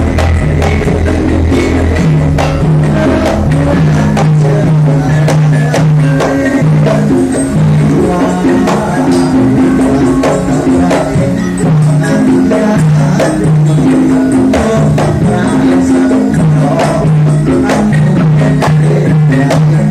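Live Javanese music (a gending) playing steadily: low held melodic notes changing every second or so under a dense run of quick percussion strikes.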